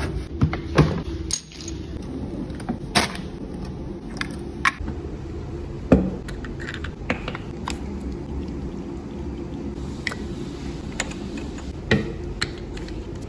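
Gloved hands handling small objects on a table: scattered sharp clicks and knocks of a plastic cap and a medication bottle being picked up and set down, over a steady low hum.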